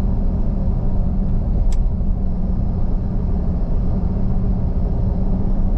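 Steady low rumble of road and engine noise heard inside a moving car's cabin, with a constant hum and a single brief click a little under two seconds in.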